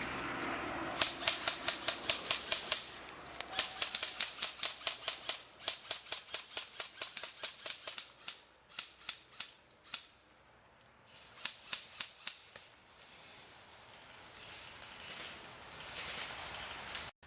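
Airsoft guns firing in rapid full-auto bursts, several bursts of sharp snapping shots at about eight a second with short gaps between. From about 13 seconds in, only a faint hiss remains.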